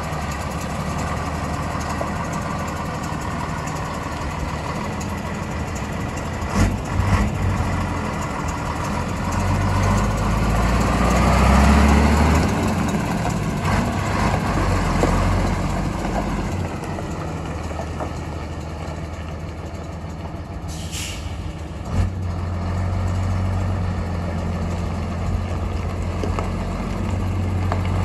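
Scania LS 85 Super truck's diesel engine idling steadily, swelling louder for a couple of seconds near the middle. A few short knocks come about seven seconds in and again near 22 s, and a short hiss of released air comes about 21 s in.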